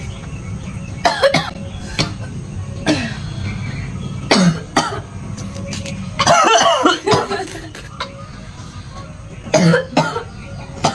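A person's short coughs and throat sounds: about half a dozen brief bursts, some falling in pitch, with a longer vocal outburst about six seconds in.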